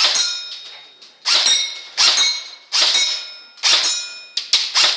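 Airsoft gun firing single shots about once a second, six or seven in all, each a sharp crack followed by a short ringing metallic tail.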